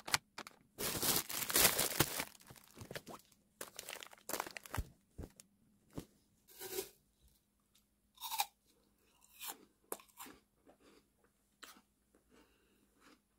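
A person chewing crisp food up close. A dense run of loud crunches fills the first two seconds, then scattered, softer crunches thin out.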